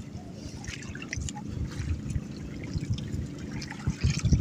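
Seawater lapping and trickling around a small wooden outrigger boat as a fishing net is hauled in over the side, with a few low knocks near the end.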